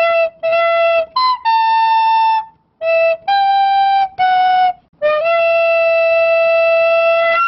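Intro music: a solo flute-like melody of about eight notes with short pauses between them, ending on one long held note.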